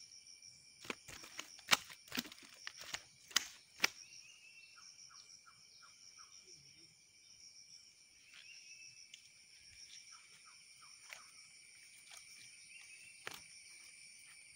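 A landed fish slapping against the muddy ground in a handful of sharp slaps during the first few seconds, over a steady high-pitched chorus of insects.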